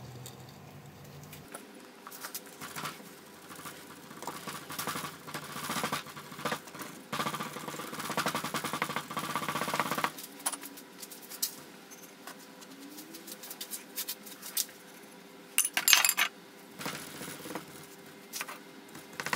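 Green casting sand being poured into a wooden flask and packed down by hand: a dense gritty rustle for several seconds, then scattered taps and a brief cluster of sharper knocks near the end.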